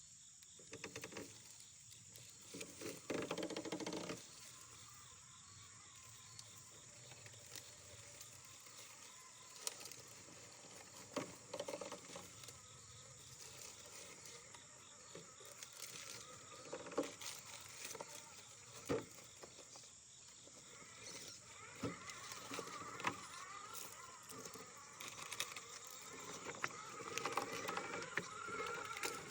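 Electric radio-controlled scale rock crawler driving off-road. A faint, high motor and gear whine wavers in pitch as it grows louder later on, with scattered sharp clicks and knocks from the chassis and tyres on the terrain.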